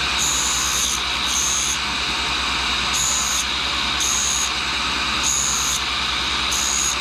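1942 Cincinnati tool and cutter grinder running steadily, its cup wheel hissing in six short bursts about a second apart as the brazed carbide tip of a boring cutter is passed back and forth across its face.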